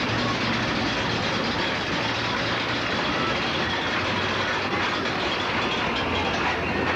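Steady rumbling noise of a moving vehicle, unbroken and even in level.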